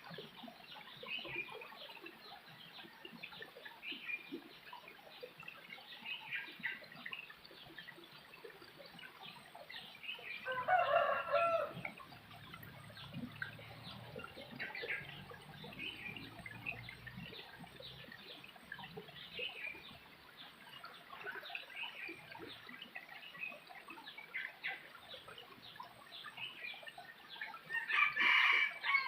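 A rooster crowing twice, about eleven seconds in and again near the end, over steady chirping of small birds.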